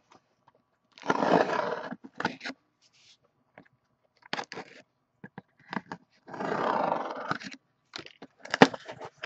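Packing tape on a cardboard case being slit open with a blade: two noisy cutting passes, each about a second long, with scattered clicks and taps of the box being handled and one sharp knock near the end.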